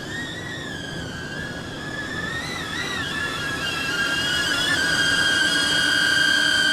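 Small quadcopter racing drone in flight, its motors and propellers whining high-pitched as several close tones that waver up and down, then settle into a steady, louder whine about four seconds in.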